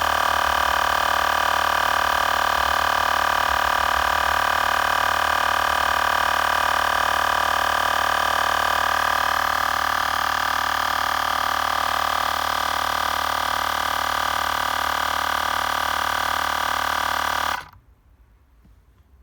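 Xiaomi Portable Electric Air Compressor 2 running steadily as it inflates a car tyre, a loud, even hum that cuts off suddenly near the end when the compressor's automatic shut-off stops it at the set pressure.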